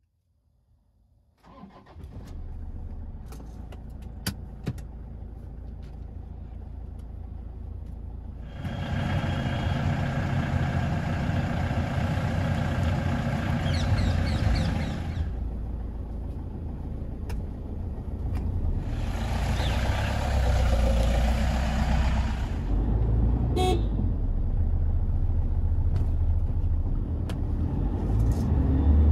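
Toyota Innova's 2.5-litre four-cylinder turbo diesel engine starting about a second and a half in, then running at a steady low idle. It grows louder and fuller for two stretches of several seconds, from about eight seconds in and again from about nineteen seconds in.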